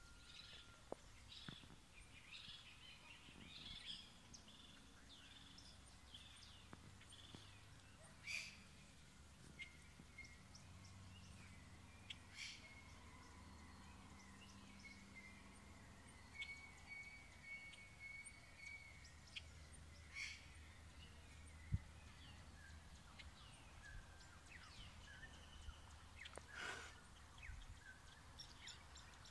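Faint dawn chorus of birds: many scattered chirps and short calls, with a few sharper, louder calls and a thin whistle held for a couple of seconds past the middle.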